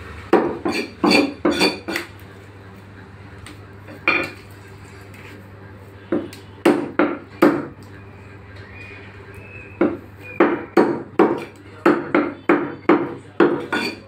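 Cleaver chopping chicken into pieces on a wooden log chopping block: sharp chops in uneven groups, ending in a quick run at about three chops a second.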